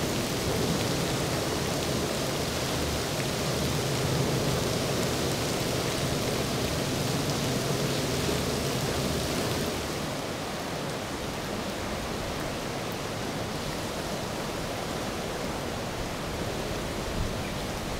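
Steady rush of heavy rain and wind with no distinct events. In the first half a low hum from the passing twin-outboard center-console boat runs under it. About ten seconds in, the hum falls away and the rush turns slightly softer and more even.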